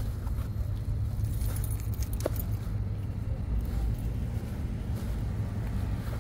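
Low, steady rumble of a car driving, heard from inside the cabin.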